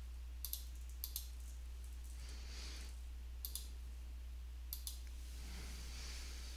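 Computer mouse button clicks: four pairs of quick clicks, a second or two apart, over a low steady electrical hum.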